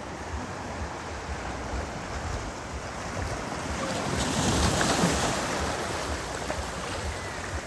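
Ocean surf breaking and washing up the beach, one wave swelling loudest about halfway through and then easing off, with wind buffeting the microphone.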